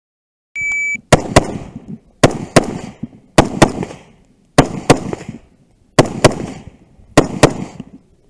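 An electronic shot timer's short start beep, then an AR-15-style carbine firing rapid pairs of shots: six pairs about a second and a quarter apart, the two shots in each pair about a quarter second apart, with one more shot at the very end.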